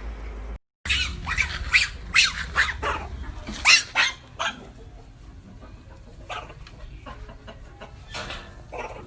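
A dog barking: a quick run of about a dozen sharp, loud barks over three or four seconds, then a few fainter barks now and then.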